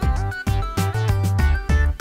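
Background music with a steady beat, plucked-guitar notes and a bass line.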